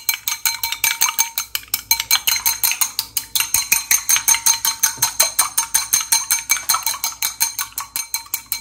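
Chopsticks beating an egg in a small glass bowl, knocking the sides at about six strokes a second in a fast, even rhythm. Each knock leaves the glass ringing briefly.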